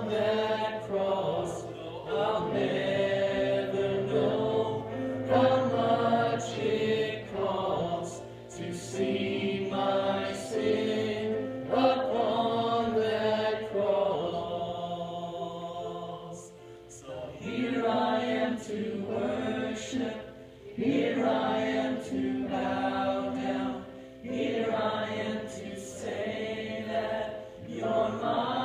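Music: a choir singing in phrases a few seconds long, with short breaks between them.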